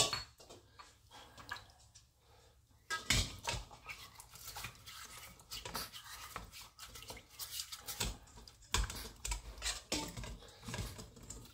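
Nylon scrub brush scrubbing the rough inside of a stone molcajete in a stainless steel bowl of water, rinsing out ground rice and stone grit: irregular scratchy strokes with an occasional knock, starting about three seconds in.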